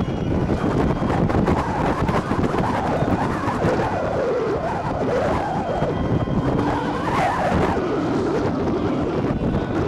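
Football stadium crowd noise: many voices shouting and calling over one another, with wind rumbling on the microphone.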